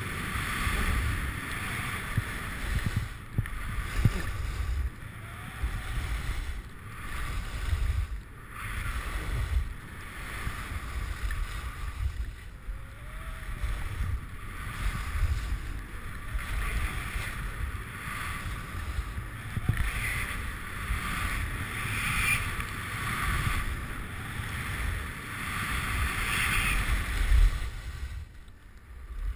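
Wind buffeting the microphone of a skier's camera during a downhill run, with the hiss and scrape of skis carving on snow swelling and fading throughout.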